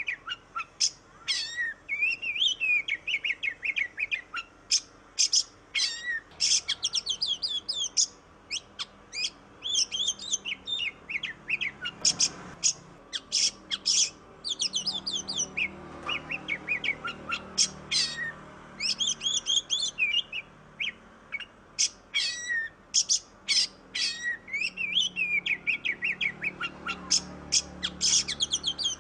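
Oriental magpie-robin (kacer) in full song: a fast, varied run of sharp chirps, quick trills and short sweeping whistles, with only brief gaps.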